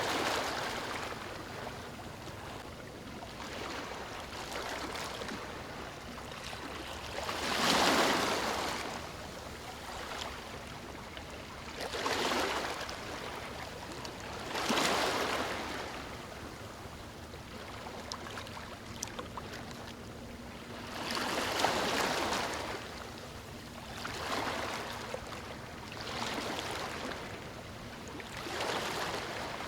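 Ocean waves breaking and washing up a beach, about eight surges of surf each swelling and fading over a couple of seconds, the biggest ones about 8, 15 and 22 seconds in.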